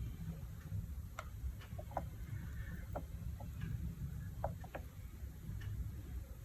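Light, irregularly spaced clicks and taps, about a dozen in all, from plastic cups and resin bottles being handled while resin is poured into a small cup, over a faint low hum.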